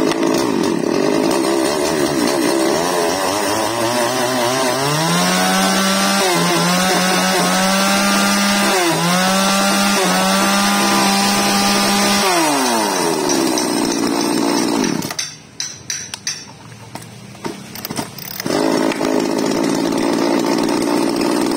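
Shindaiwa 357 37cc two-stroke top-handle chainsaw idling unevenly, then held at high revs for about eight seconds with a few brief dips before dropping back to idle: a demonstration of the throttle response that the seller calls fine. About fifteen seconds in the engine sound falls away for a few seconds, then it runs again near the end.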